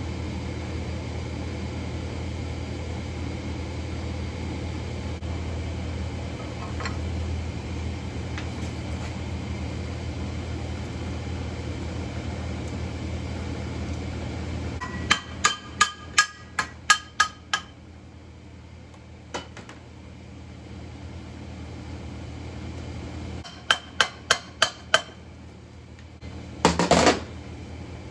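Hammer tapping metal parts of a Yanmar 1500 front-axle portal housing: a quick run of about eight ringing strikes, then after a pause a second run of about six, and a short clatter near the end. Before the strikes there is only a steady low hum.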